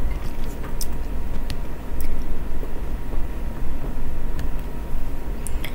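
Steady low rumble, with a few faint, scattered clicks over it.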